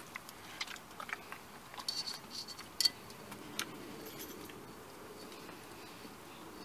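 Hands kneading and pressing seasoning into a wet, marinated raw pork shoulder in a metal pot: a scatter of small squishes and clicks, mostly in the first four seconds.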